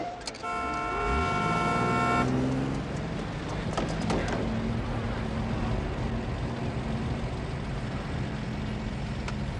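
A car horn is held for about two seconds near the start while a vehicle engine revs up beneath it. Then steady city street traffic noise continues, with an engine running.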